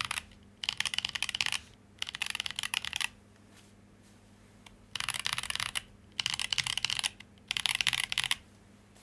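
Prime_E 40% mechanical keyboard with stock Boba U4T tactile switches on an acrylic plate, keys struck in quick runs of rapid keystrokes. Each run lasts about a second, with a longer pause in the middle.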